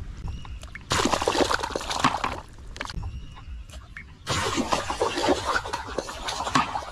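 Shallow muddy water splashing and sloshing as a bamboo plunge basket is worked through it by a person wading, in two long bursts: one about a second in and another from just past four seconds.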